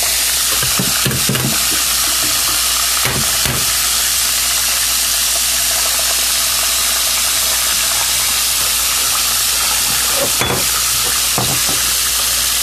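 Stuffed chicken wings deep-frying in a pan of hot oil: a steady sizzle, with a few brief knocks.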